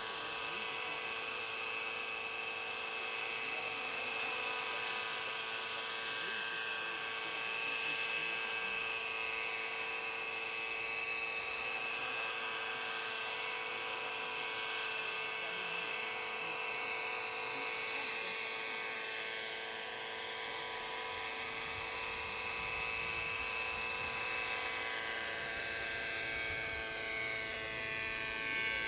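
Knight 50 3D radio-controlled model helicopter flying: a steady, high whine from its motor and rotors, made of several pitches at once, drifting slightly up and down in pitch as it manoeuvres.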